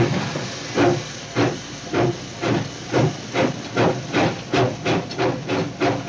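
Steam locomotive chuffing as it pulls away, the puffs of exhaust steam coming faster and faster as the train gathers speed.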